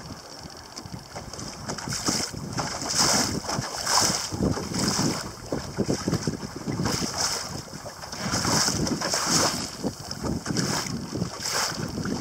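Water splashing and sloshing against the hull of a Cornish Crabbers Coble sailboat under way in a choppy sea, in irregular hissing surges, with wind buffeting the microphone.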